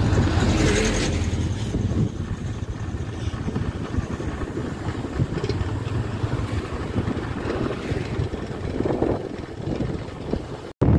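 Wind buffeting the microphone on a moving motor scooter, a steady low, rough rush of wind and road noise. In the first second or two a heavy truck passing the other way adds a louder, brighter rush.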